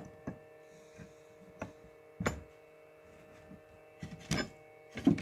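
A few scattered light knocks and clunks of wood and metal parts being handled as an old hand wringer's roller assembly is lifted out of its frame, the strongest about two seconds in and again near four seconds, over a steady electrical hum.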